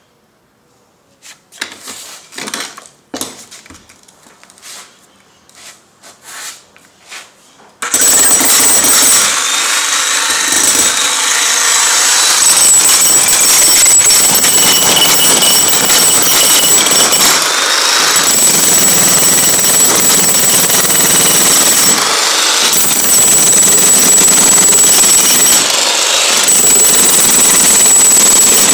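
Corded electric demolition hammer chiselling into a concrete floor, running in long loud stretches with a few brief pauses. Before it starts, about eight seconds of scattered faint knocks and scrapes.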